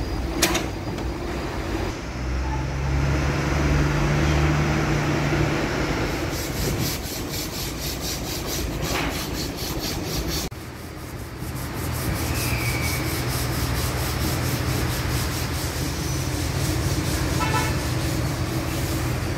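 Steady low engine hum with a fast, even rubbing or scraping over it, and a short break about halfway through.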